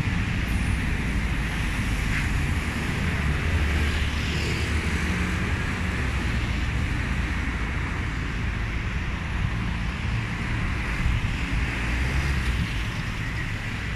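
Steady city street traffic noise, with wind rumbling on the microphone.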